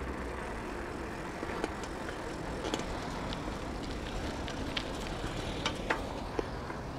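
Bicycle being ridden: a steady rumble of tyres and wind, with scattered light clicks and rattles.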